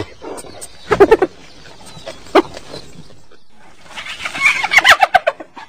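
Spotted hyena calling: a few short pitched calls spaced out in the first half, then a quick run of rapid calls from about four seconds in.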